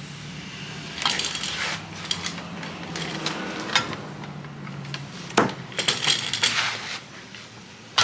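Metal suspension parts and tools clinking and knocking as bushings are pushed into the front suspension, a handful of separate sharp clinks, with a low steady hum that stops about five seconds in.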